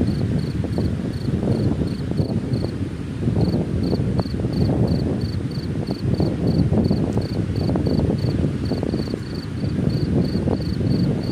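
Strong wind gusting and buffeting the microphone in a loud, uneven rumble, with an insect chirping steadily about three to four times a second over it, breaking off for a moment about two seconds in.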